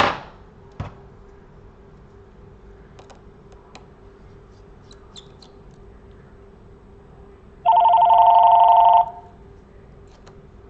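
Two sharp clicks of small tools at the start, then faint ticks, and near the end an electronic two-tone ring lasting about a second and a half, like a telephone ringing. A faint steady hum runs underneath.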